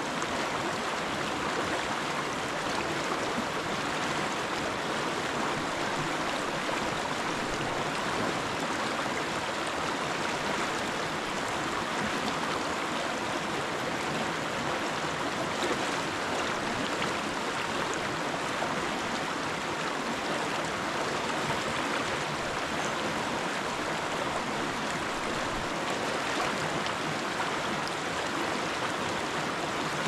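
River water running over boulders: a steady, even rush with no pauses.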